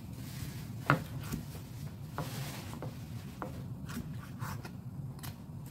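Kitchen knife chopping boiled pork into cubes on a wooden cutting board: a run of irregular knocks of the blade striking the board, the sharpest about a second in.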